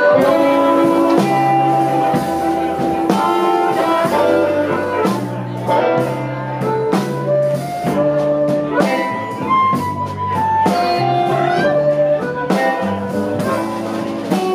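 Live electric blues band playing a slow instrumental intro: electric bass repeating a low figure, electric guitar and drums, with long held lead notes over them.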